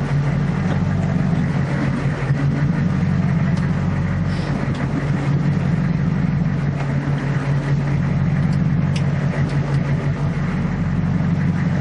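Boat engine running at a steady idle, an even, unchanging hum.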